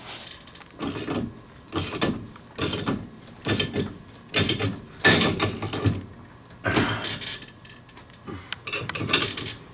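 Hand ratchet with a 7/8 socket clicking in short bursts about once a second as it turns the screw of a C-frame ball-joint press, slowly pressing a new ball joint into the A-arm.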